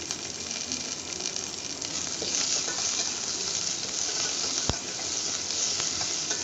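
Curry leaves, garlic and ginger sizzling in hot oil in a stainless steel pot while a spoon stirs them. The sizzle grows louder about two seconds in, and a single sharp click comes about four and a half seconds in.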